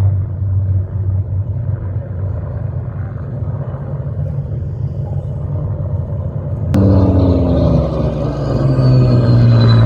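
Aircraft engines droning steadily overhead. About two-thirds of the way through, the sound jumps suddenly to a louder pass whose pitch slides downward as the aircraft goes by.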